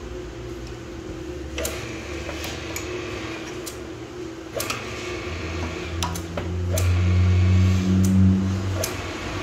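Electric iron bar-twisting machine humming steadily, with scattered sharp metallic clicks. Its low hum grows much louder from about six seconds in and drops back near the end.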